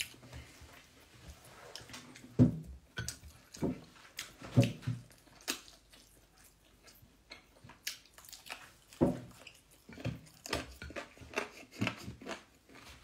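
A person eating chicken with her fingers, close to the microphone: chewing and wet mouth smacks, with irregular clicks and a few louder smacks about two and a half, four and a half and nine seconds in.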